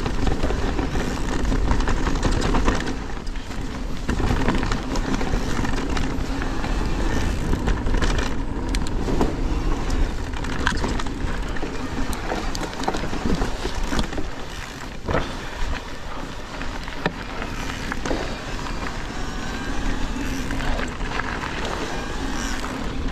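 Electric mountain bike riding fast down a rough, dusty trail: tyres running over dirt and loose stones, the bike rattling, with scattered sharp knocks from rocks and bumps and a low rumble of wind on the microphone.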